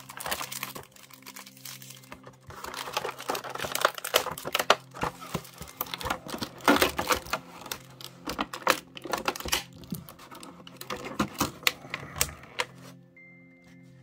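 Cardboard box and clear plastic blister packaging being ripped open and handled: irregular crinkling, tearing and clicking of plastic. Soft background music with steady low notes runs underneath.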